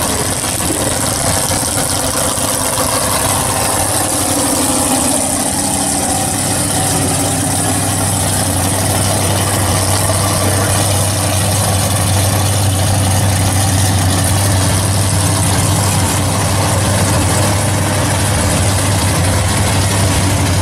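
Drag racing cars' engines idling and running steadily, a loud continuous engine rumble; a deeper steady drone sets in about seven seconds in.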